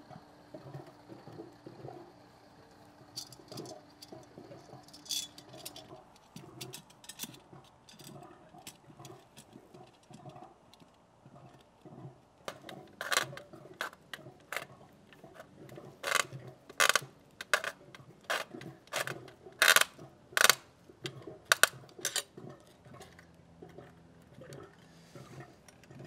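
Irregular metallic clicks and clinks of a pool light fixture being reassembled by hand, with its faceplate fitted and its clamp tightened. A run of louder, sharper clicks comes from about halfway through.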